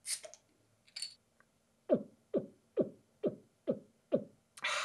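Cartoon swallowing sound effects: six rhythmic gulps, each a quick downward-sliding tone, about two a second. They come after two short hissy clicks at the start and are followed near the end by a burst of breathy hiss.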